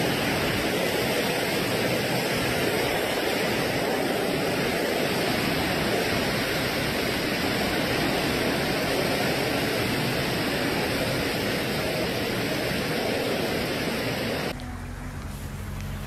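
Heavy rain and storm wind making a loud, steady rush of noise. About a second and a half before the end it drops abruptly to a quieter rush with a low hum underneath.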